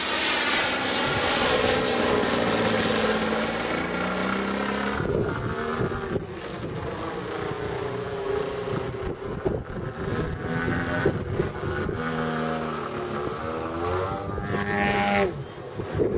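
Engine and propeller of a 33%-scale Krill Su-29 RC aerobatic plane in flight, the note rising and falling as the throttle changes through manoeuvres, with a short rising burst of throttle near the end.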